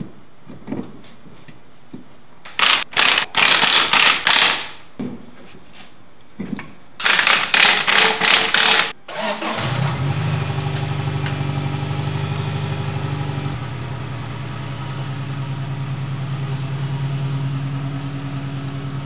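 A cordless impact wrench runs in two rapid hammering bursts, tightening wheel lug nuts. Then the pickup's engine starts about ten seconds in and idles steadily, settling slightly lower a few seconds later.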